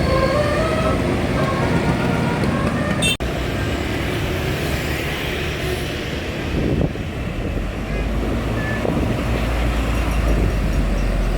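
Bus telolet horn playing a tune of short notes that step up and down in pitch, ending abruptly about three seconds in. After that, a large vehicle's engine and road noise run on, with a low engine drone growing stronger in the second half.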